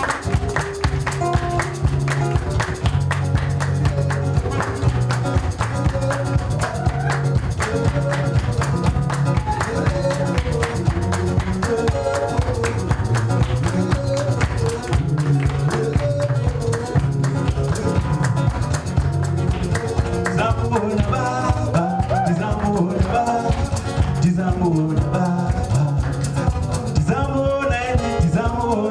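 Live acoustic band music: guitars played in a fast, steady rhythm over a sustained bass line, with a singing voice joining in during the second half.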